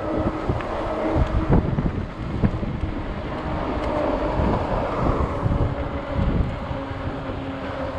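Wind buffeting the microphone of a handlebar-mounted camera on a moving fat-tire e-bike, a gusty low rumble over a faint steady hum from the ride.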